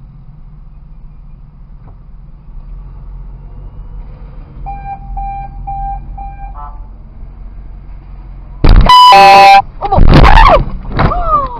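A car horn sounding as an SUV reverses into a stopped car: four short beeps, then a very loud horn blast about a second long, about three-quarters of the way in, followed by loud shouting, over the low hum of the idling engine.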